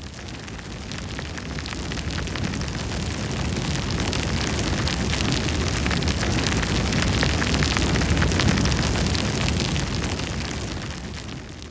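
A continuous crackling, rumbling noise, dense with fine crackles over a deep rumble. It swells over several seconds and fades out near the end.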